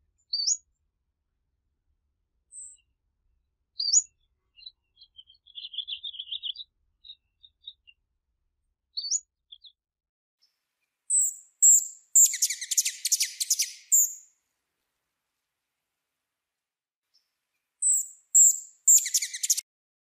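Hummingbirds calling: short, high, upward-slurred chips and a soft twitter, then twice a rapid, buzzy chattering burst, the louder and longer one about twelve seconds in.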